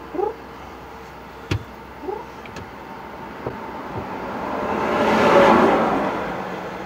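Highway traffic going past: one vehicle swells up and fades away, loudest about five seconds in. Before it come a few sharp knocks and two short rising squeaks.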